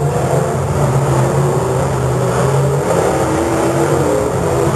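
Demolition derby car engines running with a steady low drone, pitch shifting a little near the middle.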